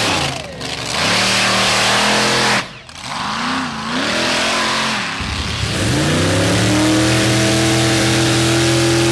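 Mud truck engines revving hard as the trucks churn through a mud pit, with a rushing noise of spray over them and abrupt changes between runs. Near the end one engine revs up and holds steady at high revs.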